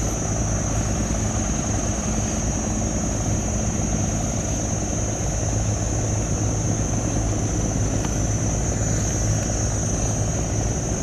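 Diesel engine of a loaded river cargo barge droning steadily as it passes, with a constant low hum that the filmer calls resounding across the whole river. A steady high-pitched whine sits above it throughout.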